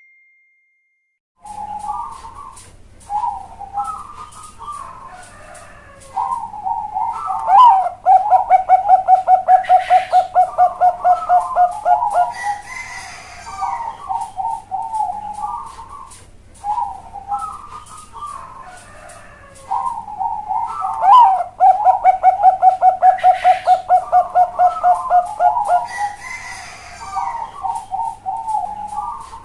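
Perkutut bangkok (show-bred zebra dove) singing its big, hollow song twice. Each phrase opens with a few short coos, then runs into a fast, even string of loud coos for about four seconds, the loudest part, and tails off in softer coos.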